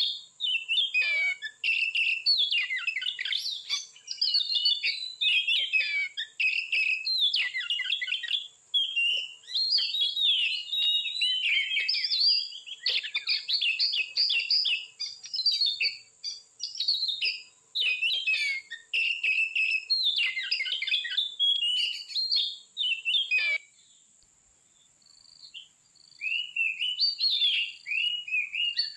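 Oriental magpie-robin (kacer) singing a long, varied song of quick whistled phrases full of mimicked bits of other birds' calls, pausing for a couple of seconds about three-quarters of the way through. A steady high-pitched hum of insects runs underneath.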